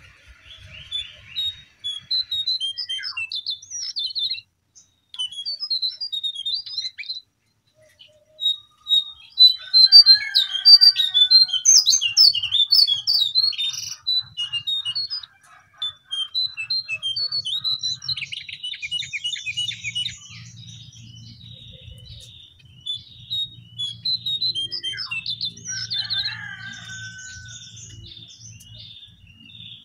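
A jongkangan (cingcoang coklat, the lesser shortwing) singing a fast, varied twittering song of high chirps and trills in phrases with short pauses, loudest about a third of the way through. A faint low hum comes in about two-thirds of the way through.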